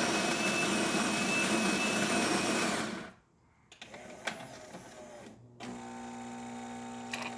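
A Jura Impressa Z7 espresso machine's built-in grinder grinds beans loudly for about three seconds, then stops suddenly. A few clicks follow as the brew unit moves, then a steady machine hum starts as the brewing cycle goes on toward pre-infusion.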